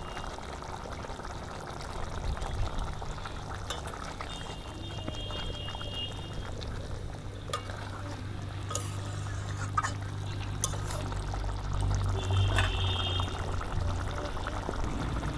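Egg curry gravy simmering and bubbling in a kadai as fried eggs are added and stirred in, with a few sharp clinks of the spoon against the pan in the second half.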